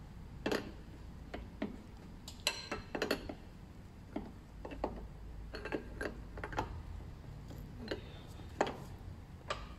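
Irregular light metallic clicks and taps from a braided stainless oil cooler hose and its fitting being handled and turned by hand while it is threaded on.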